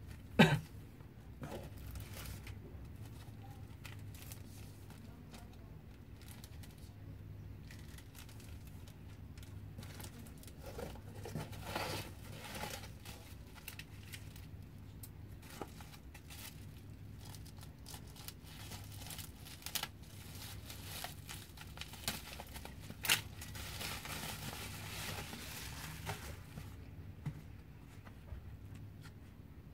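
Plastic bubble-wrap packaging being handled, crinkling in intermittent rustles, with a few sharp clicks; the loudest click comes about half a second in.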